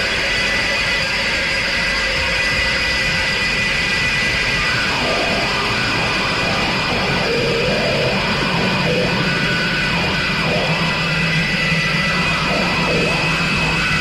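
Noise improvisation: a dense, steady wall of noise with several high held tones. From about five seconds in, wavering mid-pitched tones and a low drone join it.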